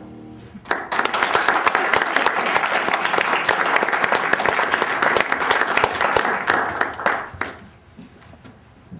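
A piano's last chord dies away, then a small audience claps for about six and a half seconds before the applause tapers off.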